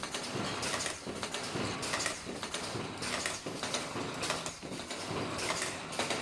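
Automatic ultrasonic face mask machine running: continuous mechanical clatter with a sharp, hissy stroke repeating roughly once a second as it cycles.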